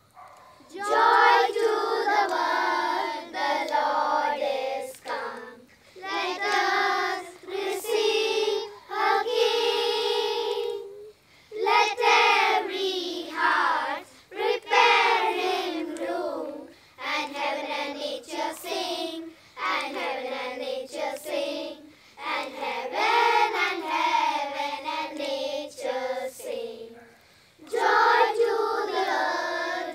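Children's choir singing a Christmas carol in phrases of a few seconds, with short pauses between them.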